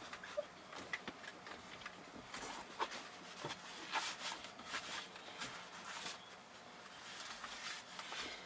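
Cleaning cloth or wipe being rubbed over the inside of a windshield: faint, irregular rubbing and small taps against the glass.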